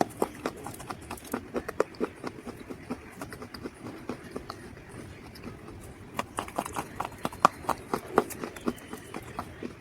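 Dried mud crunching and crumbling in quick, irregular crisp cracks, thickest about six seconds in.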